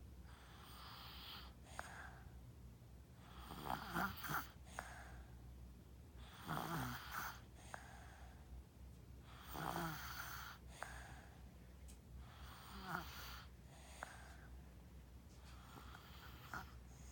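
A two-year-old child snoring in sleep, a snore on each breath about every three seconds, the louder ones with a low rattle.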